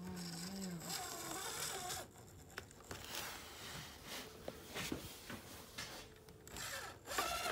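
Micro RC rock crawler's Furitek Micro Komodo brushless motor and gear drivetrain whirring at crawl speed, its tone wavering with the throttle in the first second. The noise grows louder near the end.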